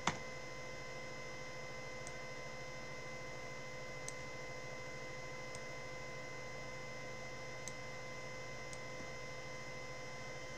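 Steady electrical hum with a faint high whine, under a few computer mouse clicks. One sharp click comes right at the start; the rest are faint single clicks a second or two apart.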